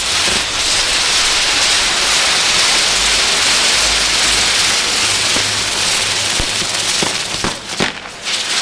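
Maltese ground fireworks hissing steadily, with a few scattered pops, and dipping briefly near the end before the hiss resumes.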